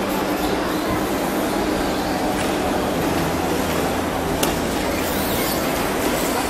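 Steady, echoing din of a large hall during a radio-controlled short course truck race: RC trucks running on the track under the general noise of the crowd. A single sharp knock about four seconds in.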